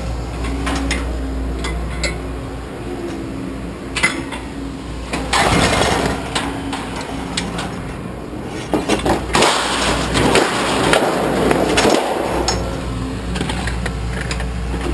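Scrap metal being unloaded and thrown onto a pile: sharp knocks and two longer stretches of clanking and clattering, over the steady drone of an engine running.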